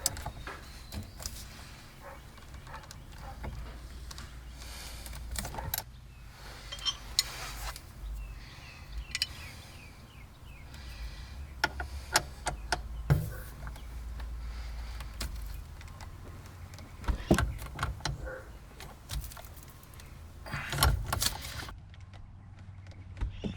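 Scattered clicks, taps and light rattles of plastic steering-wheel parts and tools being handled and fitted during reassembly, over a low steady hum.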